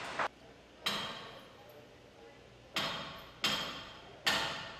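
Sledgehammer striking the steel anchor-chain stopper gear: four sharp metallic blows at uneven intervals, each ringing and fading away. This is the hammering used to knock the chain stopper free so the anchor can be let go.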